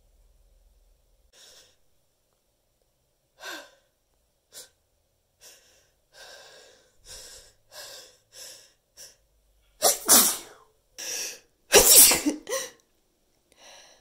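A person's sneeze buildup: a run of short gasping breaths coming more and more often, then loud sneezes in the last few seconds, the two loudest about two seconds apart.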